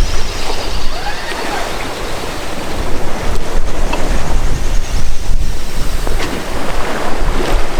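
Sea water rushing past a sailing yacht's hull as it runs under sail in a fresh breeze, with wind buffeting the microphone.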